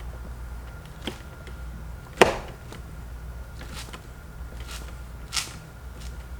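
A few sharp clicks and knocks of plastic interior trim being handled and pressed into place, the loudest about two seconds in, over a steady low hum.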